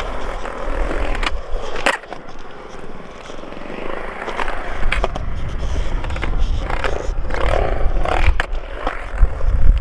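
Skateboard wheels rolling over smooth concrete, a rumble that grows louder about halfway through, with several sharp clacks of the board and trucks along the way.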